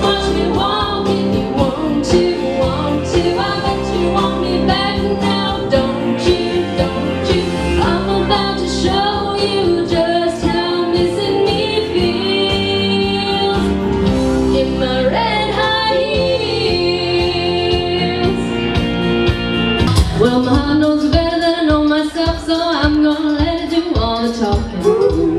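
A woman singing a pop-country song into a microphone over a karaoke backing track. About twenty seconds in, the accompaniment drops to a sparser steady beat under her voice.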